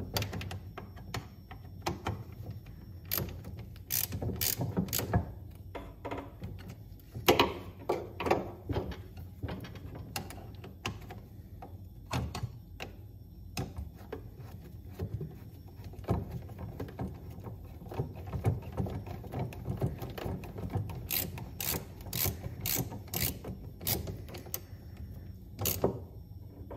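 Hand socket ratchet clicking in short runs with pauses, as the nuts on the bolts holding the rubber auger paddles are tightened.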